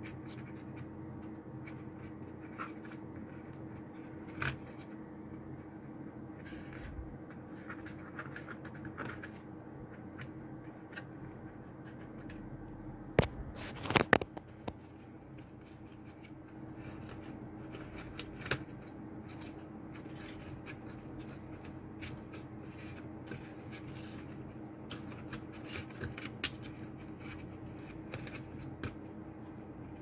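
Hands working on the parts inside an opened laptop: scattered small clicks and scrapes, with a cluster of sharper clicks about halfway through, over a steady low hum.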